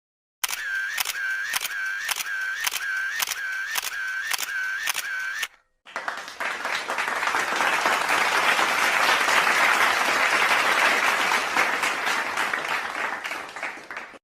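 A run of evenly spaced clicks, about two a second, each with a short pitched tone, like a camera shutter firing repeatedly, which stops after about five seconds. After a brief gap, applause swells and then fades away.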